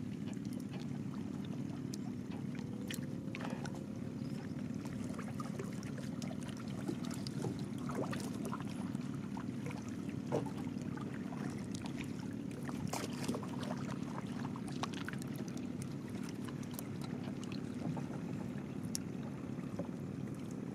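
A boat motor running steadily, with scattered short clicks and splashes of water.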